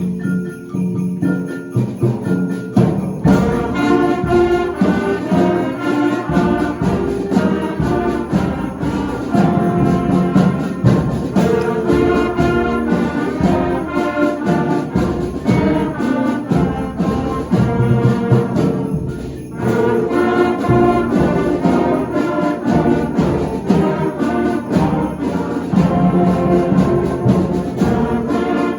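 Middle school concert band playing a full-ensemble passage of winds and brass with percussion. The texture thins for the first few seconds, and the music dips briefly about two-thirds of the way through.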